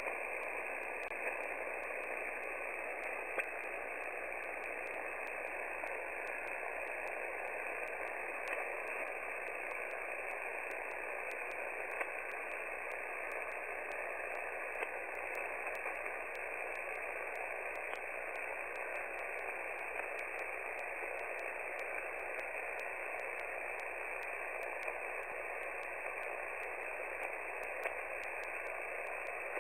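Shortwave receiver hiss and static on the 14.325 MHz amateur radio frequency, an open single-sideband channel with nobody transmitting: a steady hiss with a few faint clicks here and there.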